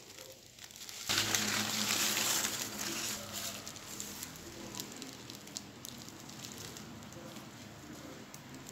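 Plastic wrapping crinkling and leaves rustling as a plastic-wrapped kumquat seedling is handled. The noise rises sharply about a second in, is loudest for the next two seconds, then goes on more softly with small clicks.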